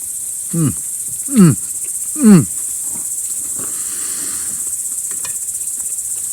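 Steady high-pitched insect chirring, like crickets, throughout. Over it, early on, three short voice-like sounds each slide steeply down in pitch, about a second apart.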